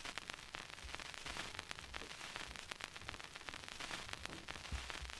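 Soft footsteps, about two a second, under a steady crackling hiss full of small clicks.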